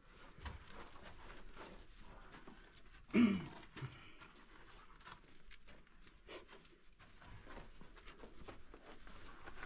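A dog panting, with scuffing steps on a sandy, gravelly cave floor as a person crawls through a low doorway. About three seconds in there is one short, low grunt.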